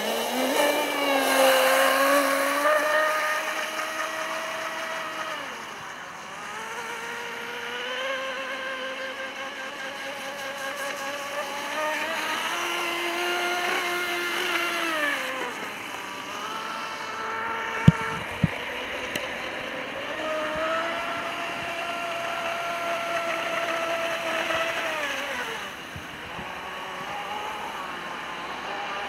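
Homemade brushless electric RC catamaran speed boat running across the water. Its motor and propeller whine steadily, the pitch rising and falling several times as the throttle is opened and eased. Two sharp clicks come about two-thirds of the way through.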